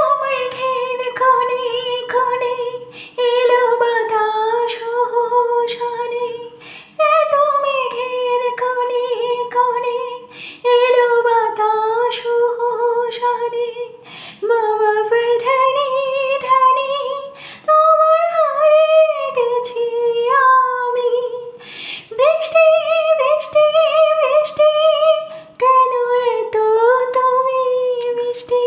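A woman singing unaccompanied, holding long, wavering notes in phrases of about four seconds, each starting sharply after a short break.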